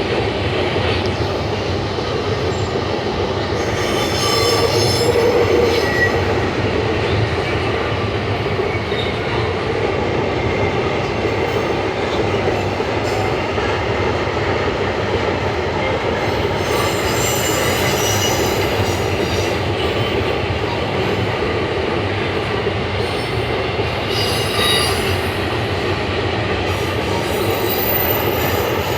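Train rolling steadily on the rails, its wheels squealing against the rail a few times: about four seconds in, again around seventeen seconds, and shortly before the end.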